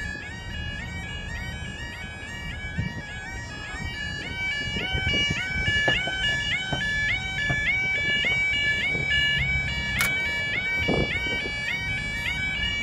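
UK level crossing 'yodel' warning alarm sounding as the barriers lower: a fast, continuous warble of short rising tones alternating between two pitches. A sharp click is heard about ten seconds in.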